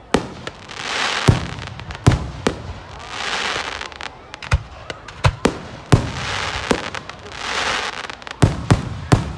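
Aerial fireworks shells bursting: about a dozen sharp bangs at irregular intervals, several coming close together near the end, with a rushing noise that swells and fades about every two seconds between them.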